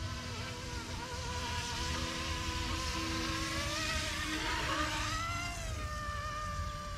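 Electric motor and rotors of a YXZNRC F09 Black Hawk RC helicopter whining in flight, the pitch wavering with throttle, dipping and then rising sharply about five seconds in. A low rumble runs underneath.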